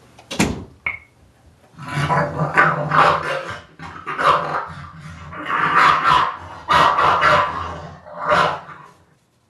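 A dog barking in quick runs of barks from about two seconds in until shortly before the end, after a single knock near the start.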